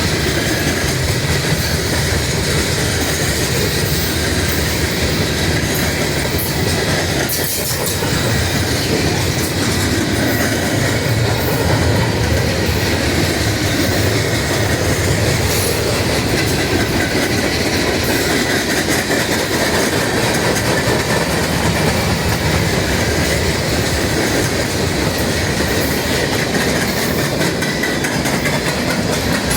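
Train cars rolling past at close range, a steady loud rumble with wheels clicking over the rails and a faint wheel squeal.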